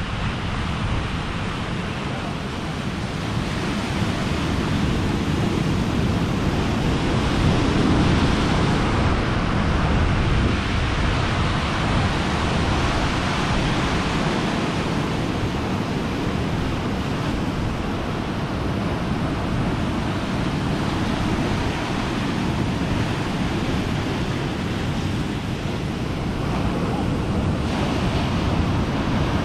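Ocean surf breaking and washing over a rocky, pebbly shore, a continuous rush of waves with wind on the microphone.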